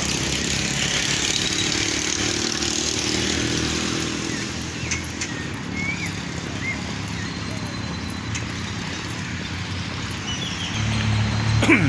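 Steady hum of motor vehicle traffic with a wash of outdoor noise, and a few faint high chirps around the middle. The low engine hum grows louder just before the end.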